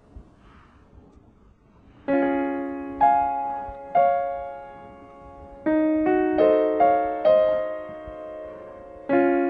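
Piano background music. After about two seconds of near-quiet, slow chords are struck and left to ring down, with a quicker run of notes midway and a fresh chord near the end.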